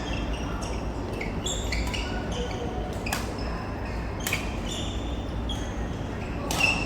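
Badminton rally: a racket strikes an Aeroplane goose-feather shuttlecock three times, the hardest hit near the end, with many short squeaks of shoes on the court floor in between.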